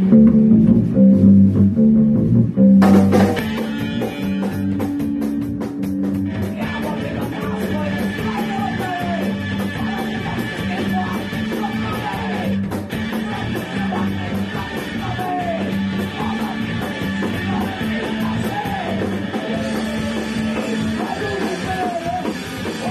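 Punk rock band playing a song in rehearsal. A low repeating riff opens it, the drums and guitars come in about three seconds in, and a woman's voice sings over the band from a few seconds later.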